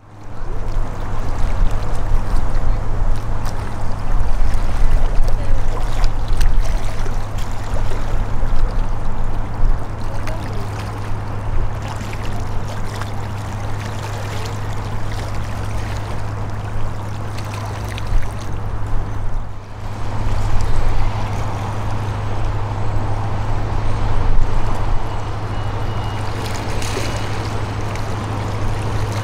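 Engines of the Project 588 river motor ship Aleksey Tolstoy droning steadily as it passes, with a hiss of water and wind over it. The drone dips briefly about two-thirds through.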